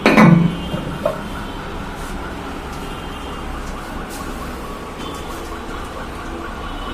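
Toilet tank fill valve (ball cock) running, water hissing into the tank at full pressure with a steady faint whine now that the valve has been cleaned. A short knock at the start and a small click about a second in.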